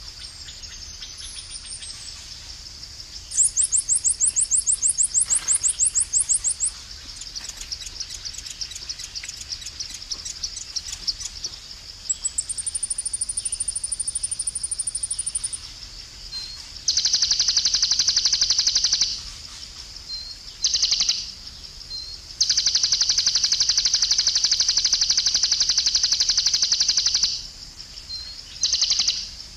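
Tropical forest birds and insects: a steady high insect drone under rapid trills and chirps. From about halfway, a loud, high buzzing call comes in long stretches with short gaps.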